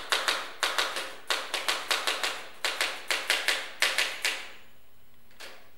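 Typewriter keys being struck in quick, uneven runs, stopping about four seconds in, with one faint knock a second later.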